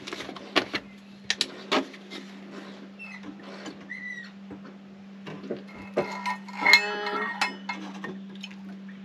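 Light clicks and clinks of plastic measuring cups and a plastic milk bottle being handled as milk is poured into a measuring cup, over a steady low hum. A few short squeaks cut in, the loudest about seven seconds in, from the van, where repairs on the hot-water system are under way.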